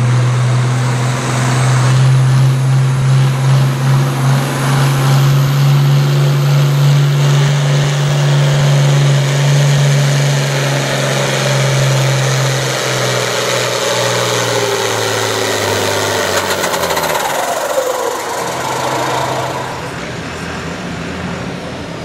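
International Harvester farm tractor's diesel engine running hard at a steady high pitch while dragging a weight-transfer pulling sled. About 13 seconds in, its pitch falls away over several seconds as the pull ends, and the engine settles to a lower, quieter run near the end.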